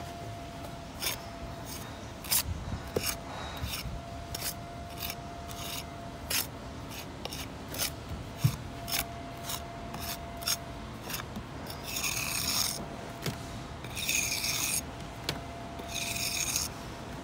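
A steel jointing tool scraping along fresh mortar joints in concrete blockwork as the joints are struck. A quick run of short scrapes gives way to three longer strokes of about a second each near the end.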